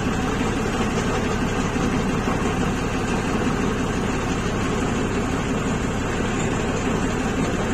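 Engine of a large passenger riverboat running steadily, a low even hum that does not change speed.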